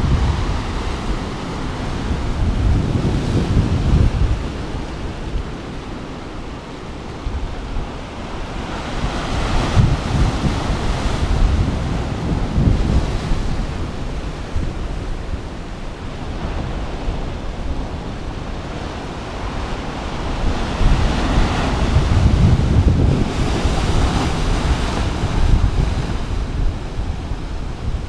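Rough sea waves breaking and washing over shoreline rocks, the surf noise swelling and easing every few seconds. Wind buffets the microphone with a low rumble.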